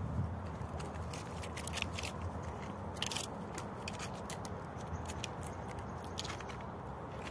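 A red squirrel gnawing and cracking food from a hand: irregular sharp clicks and small crunches, with a loud crack about three seconds in.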